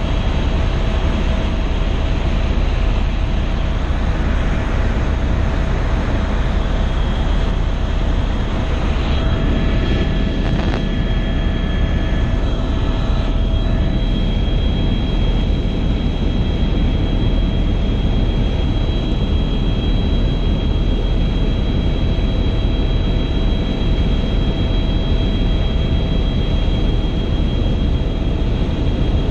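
Helicopter engine and rotor noise heard inside the cabin in flight: a loud, steady drone with a constant whine over it, and a higher whine that comes in about nine seconds in.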